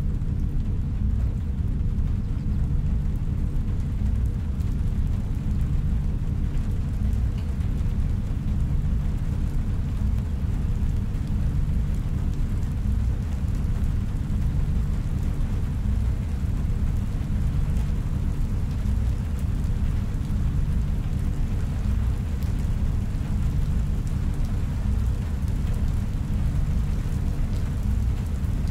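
Sci-fi room ambience: a steady, deep rumble with a faint hiss above it, unchanging throughout.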